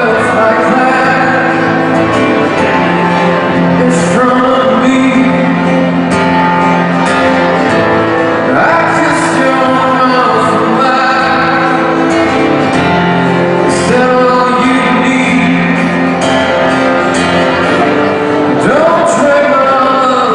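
Live music: a male singer holding sung notes over instrumental accompaniment, with the voice sliding up into several phrases.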